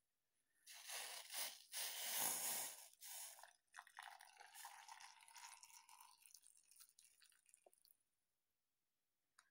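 Hot vinegar-and-salt pickling brine sloshing and pouring as the pot is handled beside the jars: a louder stretch in the first few seconds, then a quieter one that trails off near the end.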